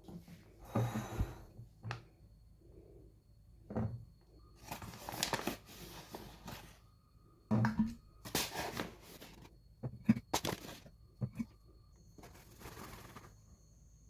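Packets of dry pasta and storage jars being handled: plastic packaging rustles and crackles in several separate bursts, with a few dull thunks as things are set down.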